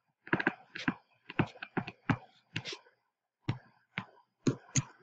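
Stylus tapping and scratching on a tablet screen while handwriting: about a dozen short taps and scrapes at irregular intervals.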